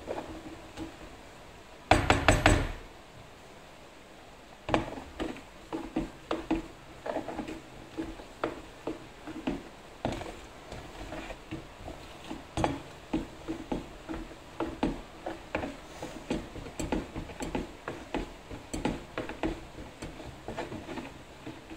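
A spoon stirring a mixture in a bowl, knocking and scraping against its sides in short, irregular taps, one to two a second. A loud bump about two seconds in.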